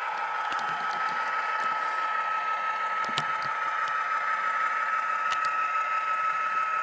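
Tsunami sound decoder in an HO-scale Athearn P42 model locomotive playing a diesel locomotive's running sound through its small speaker: a steady hum with a constant whine over it, while the model runs along the track. A few faint clicks sound over it.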